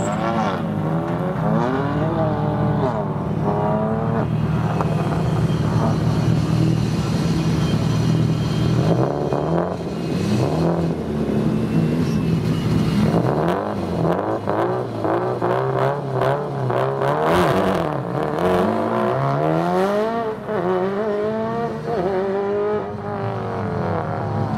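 Competition cars' engines at a tarmac rallysprint. A steady low engine drone runs through the first half, then engines rev and accelerate hard, the pitch repeatedly climbing and dropping back through gear changes.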